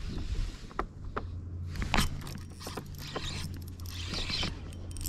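Spinning rod and reel being handled: a string of sharp clicks and light scrapes, over a steady low hum from about a second and a half in.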